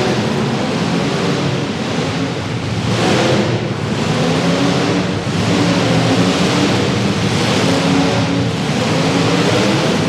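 Demolition derby car engines running hard and revving, their pitch rising and falling, over a dense wash of noise.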